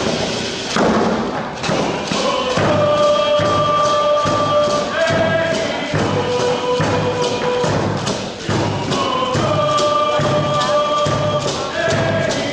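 A drum beating a steady pulse, about two beats a second, under group singing of a dance song in long held notes that step from pitch to pitch.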